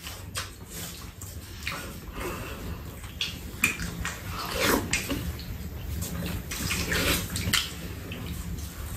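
Two people eating soup: wet slurping and chewing mouth sounds, with spoons and chopsticks clicking against bowls.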